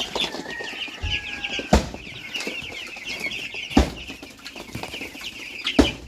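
A flock of young chicks peeping continuously in rapid, high cheeps. A dull thump cuts through three times, about every two seconds.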